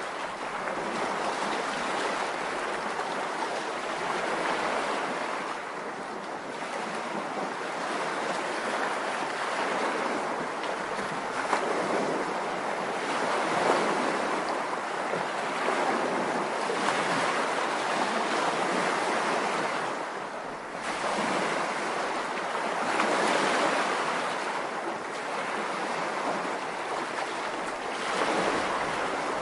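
Ocean surf: waves breaking and washing in, the noise swelling and easing every few seconds.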